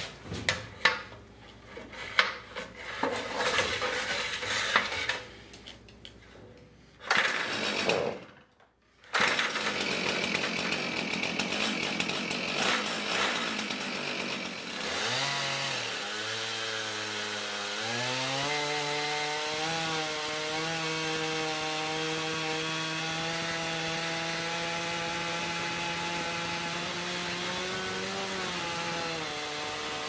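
Irregular knocks and clatter as the chainsaw mill is handled, then a chainsaw in a Granberg Alaskan mill runs at full throttle, ripping a mulberry log lengthwise. About halfway through, the engine's pitch dips briefly under the cut, then climbs back and holds steady.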